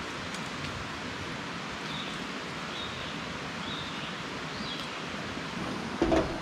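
Steady outdoor rushing noise with a bird giving a few short high calls, then a loud knock near the end.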